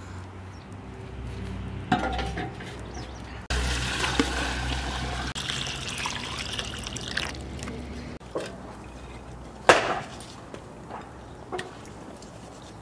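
Water poured from a plastic bucket into a large pot, a steady splashing pour that starts abruptly about three seconds in and lasts about four seconds. A few sharp knocks come before and after it.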